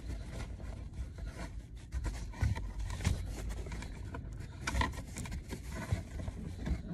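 Fingers working at the plastic clip of a car's footwell light unit, trying to pull it down. Irregular small plastic clicks, scraping and rubbing, with a few louder knocks; the unit is stuck in its housing.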